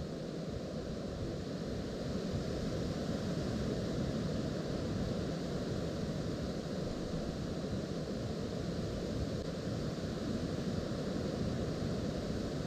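Strong, steady wind blowing, rumbling and buffeting on the microphone, a little louder after about two seconds.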